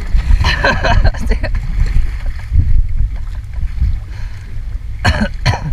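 Kayak paddle strokes splashing in the water, about half a second in and again near the end, over a steady low rumble of wind on the microphone.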